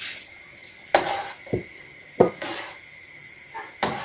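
A handful of sharp clinks against an enamel soup pot: a metal spoon striking the pot as vermicelli is stirred into the soup, along with the glass bowl being knocked on the rim as the vermicelli is tipped in. The clinks come unevenly, about six in all.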